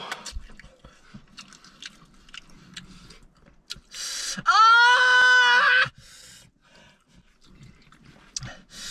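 Quiet chewing and mouth sounds. About four seconds in, a loud hissing breath, then a high, drawn-out wordless cry that rises and is held for about a second and a half: a person reacting to the burning of extra-hot chicken wings.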